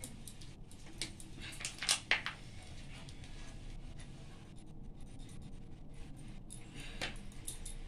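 Hand working a crumbly semolina and khoya mixture in a stainless steel bowl: a few soft scrapes and rustles, loudest about two seconds in, with another near the end.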